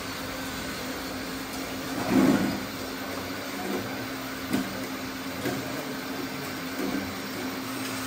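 Steady electric-motor hum of radio-controlled construction machines, with one louder swell about two seconds in and a few shorter bumps after it.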